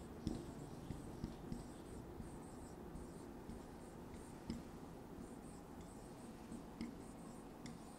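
Marker pen squeaking faintly on a whiteboard in short strokes as a phrase is written, with a few light ticks of the pen against the board.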